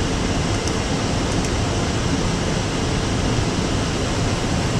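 Steady rushing flight-deck noise of an Airbus A380 in flight: air streaming past the cockpit and the air-conditioning blowing, an even hiss with no rise or fall.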